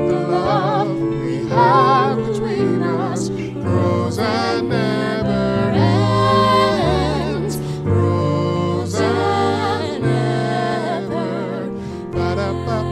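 Song with women and a man singing together in harmony, voices wavering with vibrato, over a sustained instrumental accompaniment.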